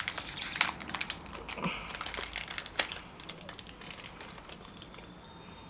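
Snack wrapper crinkling and crisp cookie bites, a run of sharp crackles that dies down after about three seconds.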